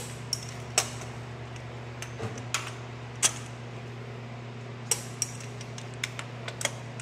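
Scattered sharp metallic clinks and clicks of a socket and torque wrench being handled and fitted onto bolts on a tractor engine's crankcase, about a dozen in all, with a run of them near the end. A steady low hum sits underneath.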